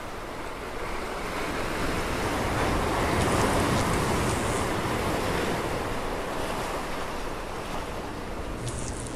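Rushing wind sound effect: a broad, surf-like whoosh that swells about three seconds in and then slowly eases off.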